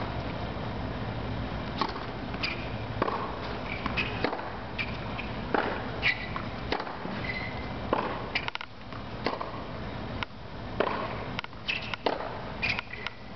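Tennis rally on a hard court: irregular sharp pops of racket strikes on the ball and ball bounces, starting with a serve, mixed with short high squeaks of tennis shoes on the court surface.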